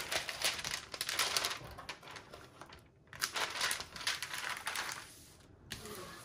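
Clear plastic cover sheet on a rolled diamond-painting canvas crinkling and rustling as the canvas is handled and pressed flat with a plastic scraper. The crinkling comes and goes unevenly, with short pauses about three seconds in and again near the end.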